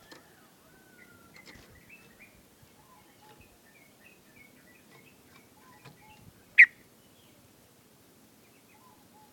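Yellow-vented bulbul giving scattered short, soft chirps and call notes, with one loud, sharp chirp about two-thirds of the way through.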